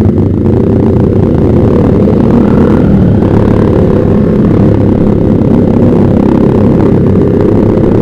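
Yamaha Vixion's single-cylinder four-stroke engine running through a Proliner TR1 short aftermarket exhaust while riding, a steady exhaust note.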